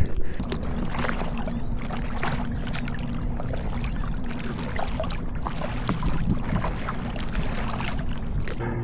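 Paddling an inflatable kayak: water splashing and dripping off the paddle, with a faint steady engine drone beneath from about half a second in.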